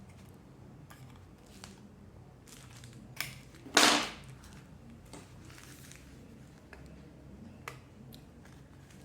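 Small clicks and taps of iPhone 7 Plus parts being handled and pressed together during reassembly, with a sharp click a little after three seconds, a louder short clatter just under four seconds in, and another click near the end.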